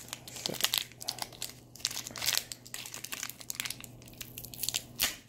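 Thin plastic and foil wrapper crinkling in the hands as a small toy packet is worked open. The crackles are irregular, with a louder one near the end.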